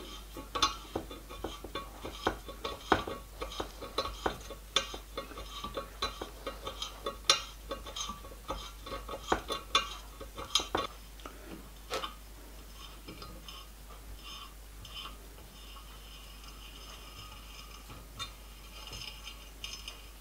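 Small tap being turned by hand in a T-handle tap wrench, cutting a thread in a steel plate: irregular sharp metallic clicks and clinks as the tap bites and is backed off, thinning out after about twelve seconds.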